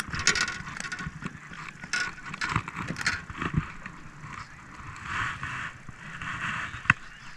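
Fishing reel being cranked while a hooked fish is reeled in, a mechanical whirring with scattered clicks and one sharp click near the end.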